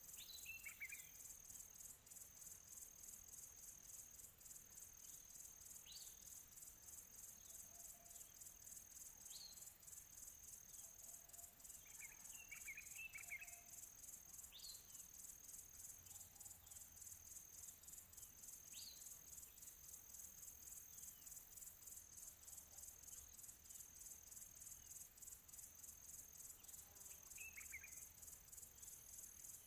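Faint, steady, high-pitched insect-like chirring with a fast even pulse, and a few short falling chirps every few seconds.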